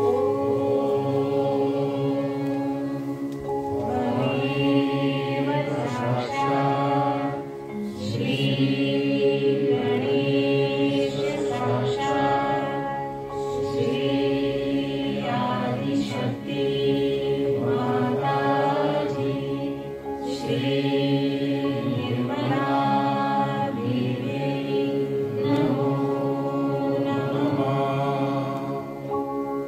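A group chanting devotional havan mantras in a sung, repeated phrase over a steady held tone.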